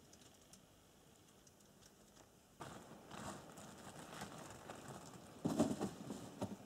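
Rustling and shuffling of clothing and gear being handled close by, starting about two and a half seconds in and loudest near the end, after a few faint clicks.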